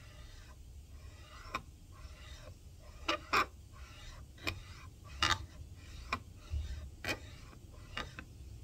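Steel vise jaw rubbed back and forth by hand on an abrasive sheet to flatten its face: repeated scratchy rasping strokes, with sharp metallic clicks roughly once a second.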